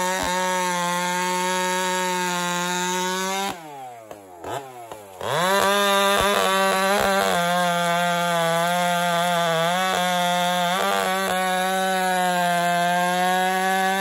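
G372 two-stroke chainsaw with a Rowdy Pipe exhaust, running at full throttle while noodling a log round (ripping with the grain). A little past three seconds in, the throttle is let off and the engine falls toward idle for about a second and a half, then it revs sharply back up and keeps cutting.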